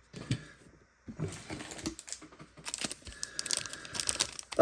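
Trading cards and wax-paper pack wrapping being handled: irregular light clicks, taps and crinkling.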